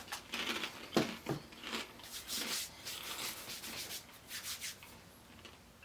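Rustling and crinkling of the microwave pork rind bag as it is handled, in irregular bursts, with a couple of light knocks about a second in.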